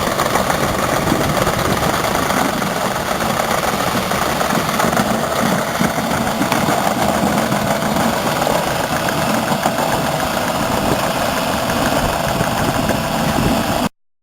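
JCB 8085ZTS excavator's Isuzu 4LE2X four-cylinder diesel engine running steadily, then cutting off abruptly near the end.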